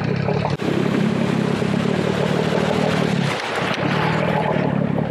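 Dinghy outboard motor running steadily through choppy water, with wind on the microphone and water splashing against the hull.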